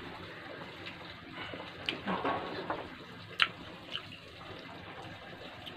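Wet, close-up chewing and mouth sounds of eating juicy dalandan (green Philippine citrus) segments, with a few sharp clicks, the loudest about three and a half seconds in.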